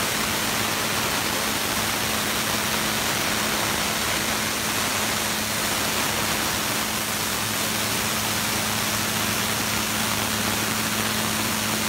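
Tormach PCNC 770 CNC mill cutting aluminium with an end mill under coolant: a steady hiss of coolant spray over an even, low hum from the running spindle.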